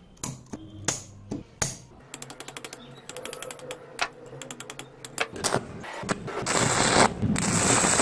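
Electric sparking from a microwave oven transformer setup: scattered sharp snaps, then a fast rattle of small snaps, then from about six and a half seconds a loud, steady crackling hiss of an electric arc.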